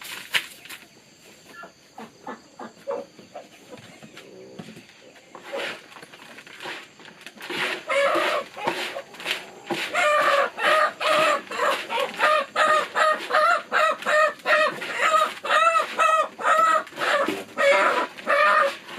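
Chickens clucking: scattered faint clicks, then from about eight seconds in a loud, steady run of short repeated calls, about two or three a second.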